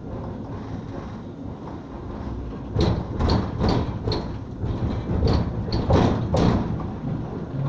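Tram running with a steady low rumble inside the passenger saloon, then, about three seconds in, a run of about nine sharp, irregular knocks and rattles over some three and a half seconds before the rumble settles again.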